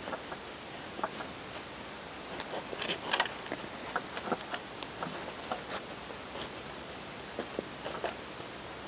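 Gloved hands working parsley seedlings into loose potting soil in a plastic planter: scattered soft rustles and small scratching clicks, busiest about three seconds in, over a steady low hiss.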